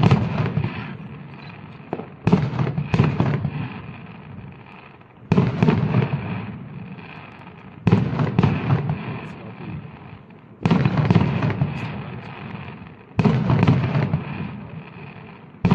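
Aerial firework shells bursting, a sharp bang about every two and a half seconds, each trailing off over a couple of seconds before the next.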